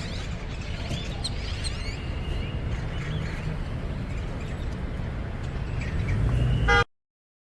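A crowd of birds chirping and calling over a steady low rumble. The rumble grows louder near the end, and then all sound cuts off suddenly.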